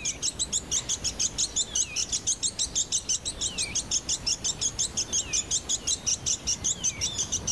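Bonin white-eye calling loudly to mark its territory: a falling whistle repeated about every second and a half, over fast, high, even chirping.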